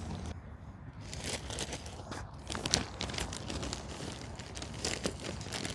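Plastic bag of Miracle-Gro garden soil crinkling and rustling while soil is poured from it into small pots, a run of irregular crackles and patters that starts about a second in.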